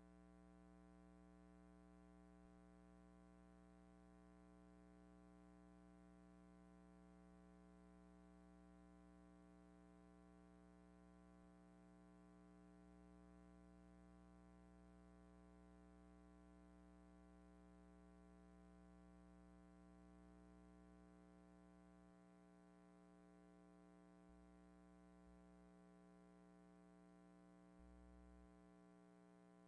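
Near silence: only a faint, steady hum, with no sound from the helicopters.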